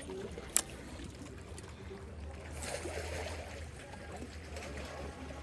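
Lake water lapping and splashing over a steady low rumble of wind, with one sharp click about half a second in and a louder swell of splashing around the middle.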